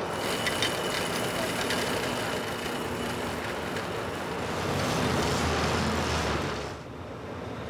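Steady rumbling outdoor city noise with light rattling in the first two seconds. It swells louder about five seconds in and drops away suddenly shortly before the end.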